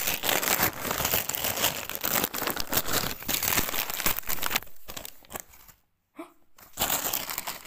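Christmas wrapping paper being torn and crumpled as a present is unwrapped: a dense crinkling, tearing rustle, busiest in the first half, that breaks off to silence for a moment about three-quarters of the way through and then starts again.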